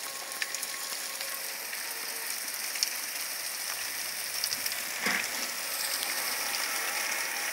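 Hail shower pattering steadily on a garden and patio, an even hiss with a few sharper ticks.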